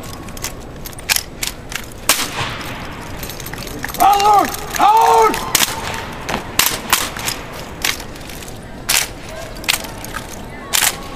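Drill team rifles being handled in exhibition drill: irregular sharp slaps and knocks of hands striking the rifles and rifle butts hitting the floor. About four seconds in come two long shouted drill calls, one right after the other.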